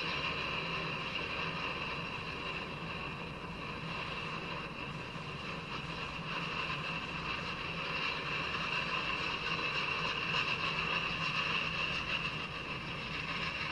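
Freight train of black tank cars rolling past, a steady rolling rumble of wheels on rail with a steady high tone riding over it. It is heard through a laptop's speaker.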